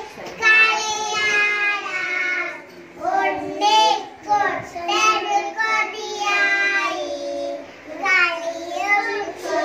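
Young girls singing into a microphone, held notes with short breaks between phrases.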